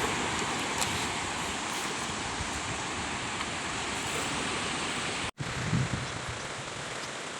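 Steady rushing wash of sea surf and wind at the shoreline. It breaks off for an instant a little past five seconds in, and a few soft low thumps follow.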